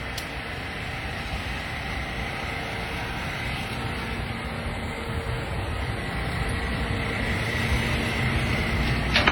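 Street traffic rumble that grows gradually louder, with a faint steady high whine over it and a sharp click near the end.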